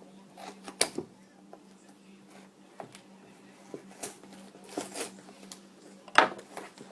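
Hand-unpacking of a package: packaging rustling and handled, with a few sharp clicks or knocks, the loudest about a second in and near the end, over a steady low hum.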